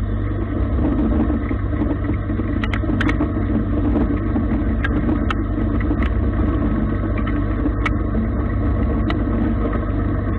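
Gildemeister CTX 400 S2 CNC lathe turning a metal bar: a steady hum of the spindle and machine under a rougher cutting noise, with scattered sharp ticks as chips fly off the cut.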